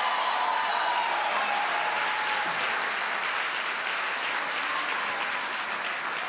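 Church congregation applauding, with a few voices calling out over it in the first couple of seconds; the clapping slowly dies down.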